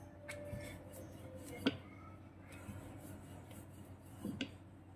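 Faint handling sounds of dough rounds and a wooden rolling pin on a countertop: a soft tap about a second and a half in and two quick taps near the end.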